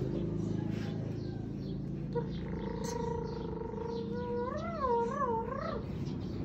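A dog whining. First a long steady note, then about four seconds in, a wavering whine that rises and falls several times.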